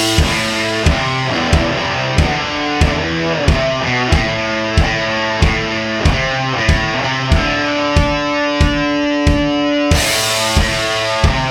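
Music with a steady, even beat of about one and a half strikes a second under held pitched notes, with a bright cymbal-like burst about ten seconds in.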